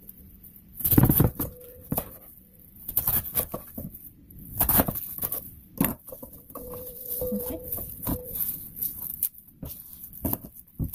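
Napa cabbage being broken into small pieces by hand and the pieces dropped into a stainless steel bowl: irregular crisp knocks and rustles at uneven intervals.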